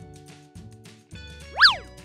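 Light children's background music, with a quick cartoon sound effect about one and a half seconds in that swoops up in pitch and straight back down.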